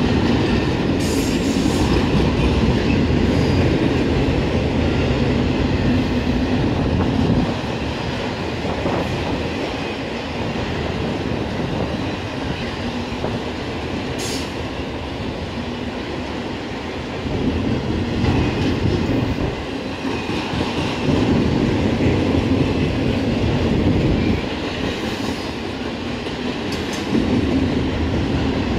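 Autorack freight cars of a long train rolling past, their steel wheels running on the rails in a steady rumble. The rumble swells and eases in stretches as the cars go by.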